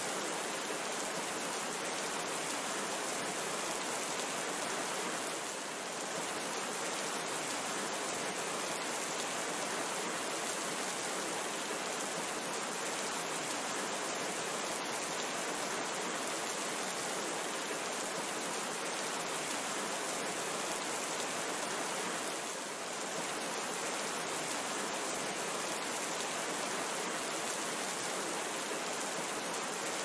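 Steady, even hiss of rain falling, briefly softer twice.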